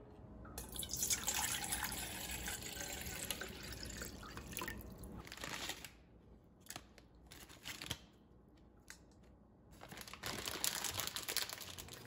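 Water running into a stainless steel bowl for about five seconds, filling it for cold-brew kombu stock, then quieter handling with a few small clicks and rustles.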